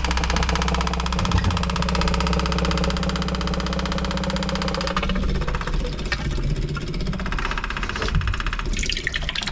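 Small 12-volt Facet electric pump running with a rapid, even ticking as it pumps fluid out through an inline filter.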